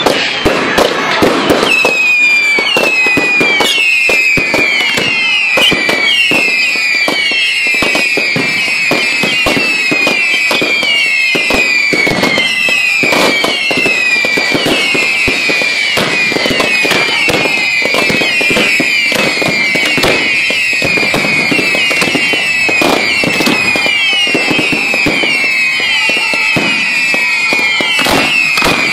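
Ground-level fireworks going off continuously with dense crackling pops. Many whistles overlap the crackle, each dropping in pitch, about two or three a second.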